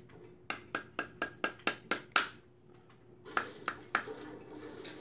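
A quick run of about eight sharp knocks, roughly four a second. After a short pause come three more.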